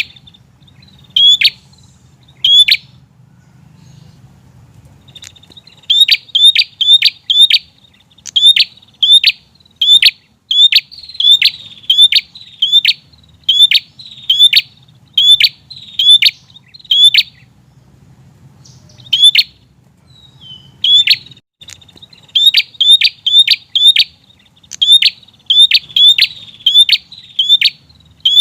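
Prinia calling persistently: sharp, high chip notes repeated in quick runs of about two to three a second, broken by pauses of a few seconds.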